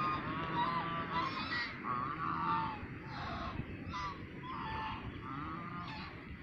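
A flock of domestic geese honking, with short calls following one another one or two a second.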